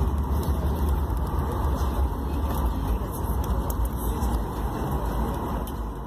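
Inside the cabin of a Boeing 737 MAX-8 rolling out on the runway just after touchdown, with its ground spoilers raised: a loud, steady low rumble of engines and wheels that starts to fade right at the end.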